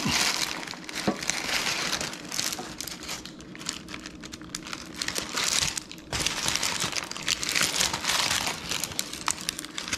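Cooked parchment paper crinkling and rustling in irregular handfuls as a baked fish-and-vegetable packet is lifted from its pan and handled by hand.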